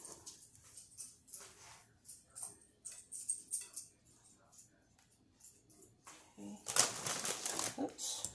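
Knife chopping broccoli into fine crumbs on a cutting board: a few scattered cuts and scrapes, a quiet stretch, then about a second and a half of fast, dense chopping near the end.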